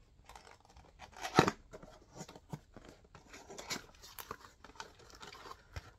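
A small cardboard box being opened by hand: irregular scraping, tearing and crinkling of the card flaps and packaging, with one sharp knock about a second and a half in.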